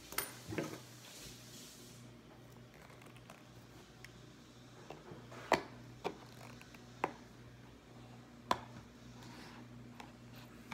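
Needle-nose pliers clicking and tapping as they grip at the metal pin in a high-heel shoe's heel: about six short, sharp clicks at irregular spacing over a faint steady hum.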